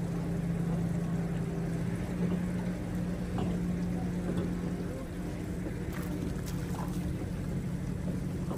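Steady low hum of a boat motor running, with a few light clicks about six to seven seconds in.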